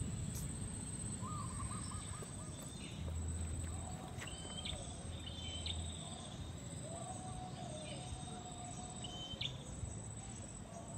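Wild birds calling outdoors: low, wavering calls and a few short, higher chirps scattered through, over a low rumble of outdoor background noise.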